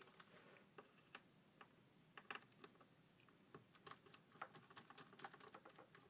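Faint, irregular small clicks and ticks of a small screwdriver turning and seating the screws in an opened Mac Mini's internal metal frame.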